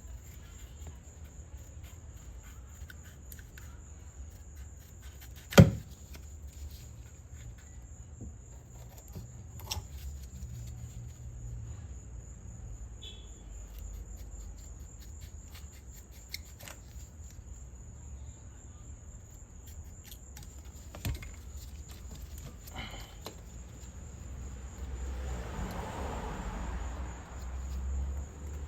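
Scattered knocks and clicks of hand work on the car body, with one sharp knock about five and a half seconds in and a rustling scrape near the end, over a steady high chirring of crickets and a low hum.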